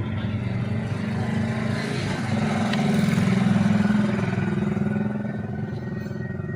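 A machine running with a steady, low, pitched hum that swells louder in the middle and eases off again.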